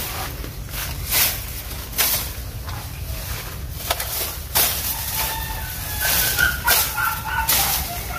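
Overgrown vines being pulled and cut, rustling and tearing in repeated sudden bursts over a low rumble. In the second half, a run of short high-pitched whining calls joins in.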